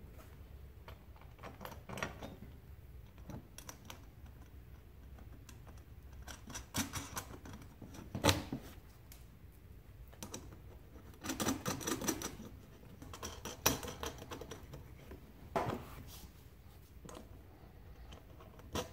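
Scattered clicks, taps and rattles of hand work on a plastic toolbox and the aluminium channel tracks screwed to it, coming in short clusters a few seconds apart.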